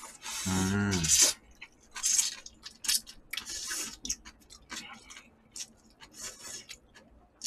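Close-miked slurping of instant ramen noodles: a run of short hissing slurps and sucking sounds, with a brief voice near the start.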